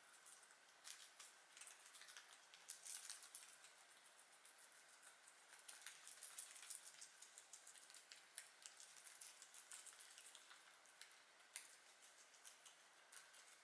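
Guinea pigs chewing lettuce and carrot: faint, irregular crisp crunching clicks.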